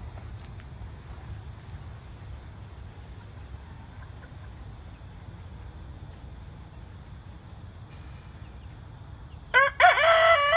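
A rooster crowing once, loud, starting about nine and a half seconds in. Before the crow there is only faint low background noise.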